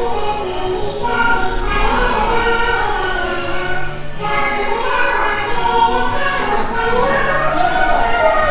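Choral music: several voices singing long held notes together over a steady low accompaniment.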